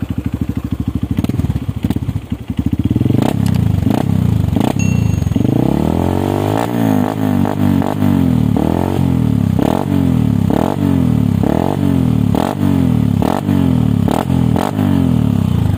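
Honda CRF150L's single-cylinder four-stroke engine running through an aftermarket slip-on muffler: idling at first, then revved in quick blips from about three seconds in, about once a second, the pitch rising and falling with each blip.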